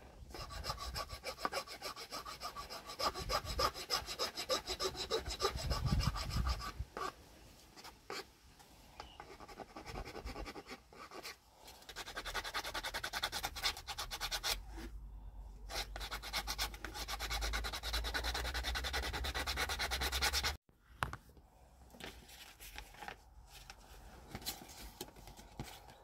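Quick repeated scraping strokes of a hand file on a carved wooden stick topper, as the rough shape is hand-finished. The strokes are loud for the first several seconds and again from about twelve seconds in, stop abruptly about twenty seconds in, and give way to quieter rubbing.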